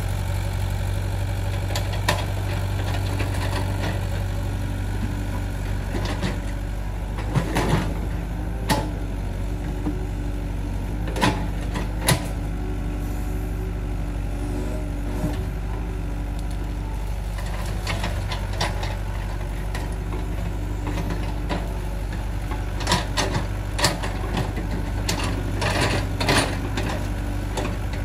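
Excavator's diesel engine running steadily, with scattered sharp clanks and knocks over it.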